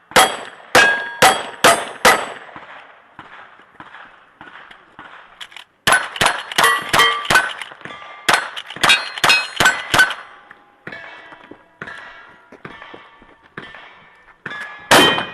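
A string of gunshots on a timed shooting stage, each hit on a steel target ringing out. There are about five shots in the first two seconds and a quick run of about a dozen between six and ten seconds. Fainter clattering follows, then one more loud shot near the end.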